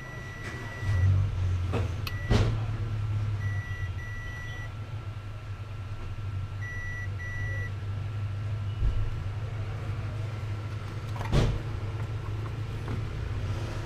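Short electronic beeps at one steady pitch, several coming in quick pairs, over a steady low hum, with a few sharp clicks.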